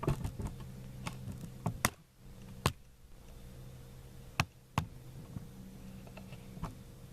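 A handful of sharp clicks and knocks, irregularly spaced, over a steady low hum that fades for a few seconds in the middle and comes back.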